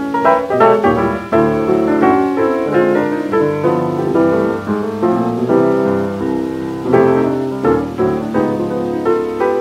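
Solo jazz piano playing quick runs and chords, from a 1927 Okeh 78 rpm record.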